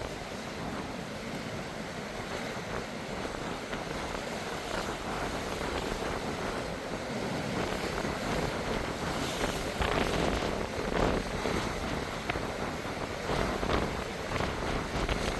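Strong wind blowing across the microphone over the wash of sea waves, rising in gusts about two-thirds of the way through.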